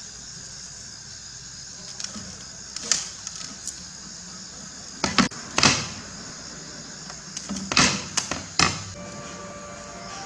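Masking tape being pulled and trimmed with a snap-off utility knife on glass panes: several short scraping strokes, the loudest two about five to six seconds in and a quick cluster of three near eight seconds.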